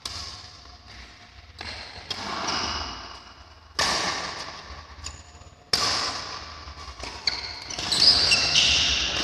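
Badminton play: rackets striking a shuttlecock about every two seconds, each strike trailing off in the echo of a large hall. The court sound gets busier and louder near the end.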